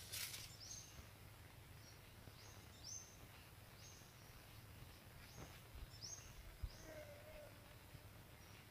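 Faint, short, high chirps from a bird, each sweeping up and then levelling off, repeated about every half second to a second.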